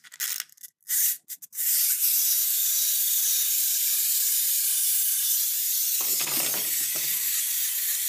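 A small clockwork wind-up walking toy: a few short clicks as it is handled and wound, then from under two seconds in its spring motor runs with a steady high whirr as the toy walks across the table.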